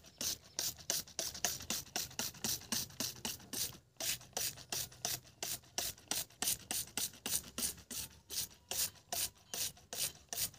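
Hand trigger spray bottle squirted rapidly, a short hiss of mist with each pull at about three to four squirts a second, with a brief pause about four seconds in.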